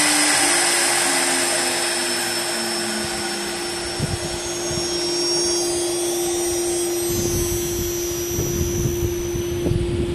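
CNC wood lathe running: a steady motor hum and whir with a high whine above it, and a short run of stepped falling tones in the first few seconds. Low thumps come in about four seconds in and again in the last few seconds.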